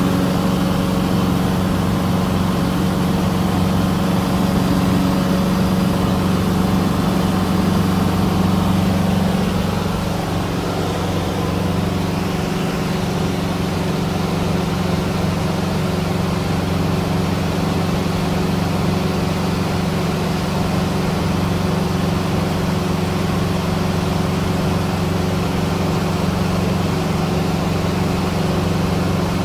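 Cessna 150's four-cylinder Continental O-200 engine and propeller droning steadily in cruise, heard from inside the cabin. About ten seconds in the engine note drops slightly and gets a little quieter, then holds steady.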